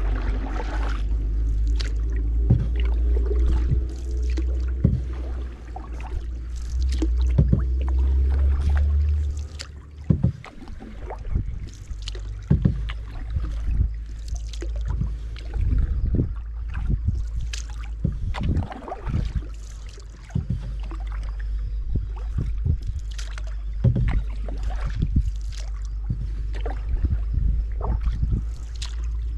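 Double-bladed kayak paddle dipping and splashing on alternate sides in irregular strokes, with water dripping off the blades. Wind rumbles on the microphone throughout, heavier for the first nine seconds or so.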